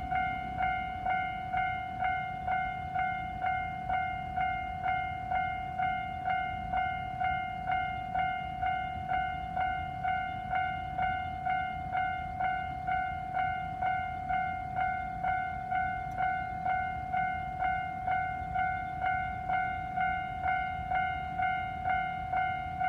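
Electronic warning bell of a Japanese level crossing ringing in even, repeating dings, about two a second, over a low steady noise.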